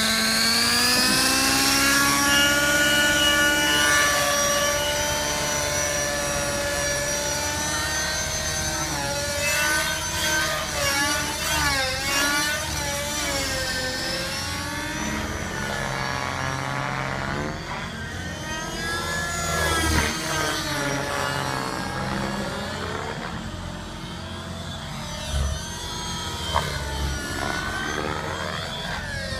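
Radio-controlled helicopter running at full head speed in flight: a steady whine of rotor and drive that climbs as it lifts off, then swings up and down in pitch as it swoops and manoeuvres.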